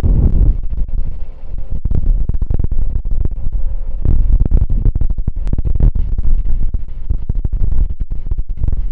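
Heavy earthmoving machinery running with a steady low rumble and irregular clicks and knocks, with wind buffeting the microphone.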